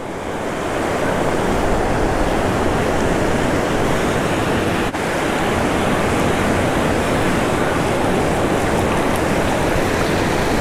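Surf breaking and washing up the beach, with wind on the microphone: a steady rush of noise with a brief dip about halfway through.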